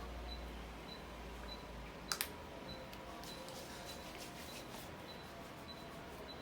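Quiet room tone with a faint regular tick a little under twice a second, a sharp double click about two seconds in, and scattered light clicks after that.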